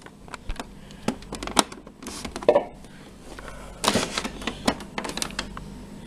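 Scattered sharp plastic clicks and knocks of a USB cable plug being handled and pushed into the port on an Epson printer, with a denser clatter about four seconds in.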